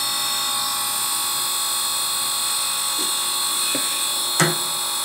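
Electric chainsaw-chain sharpener's grinding-wheel motor running with a steady high whine. A short knock about four and a half seconds in.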